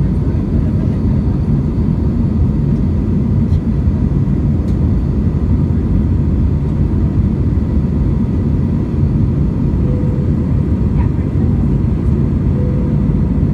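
Airbus A319 heard from inside the passenger cabin: a steady, loud low rumble of jet engines and airflow that holds level, with no change in pitch.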